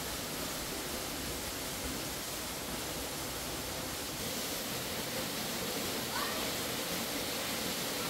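Waterfall rushing: a steady, even noise of falling water.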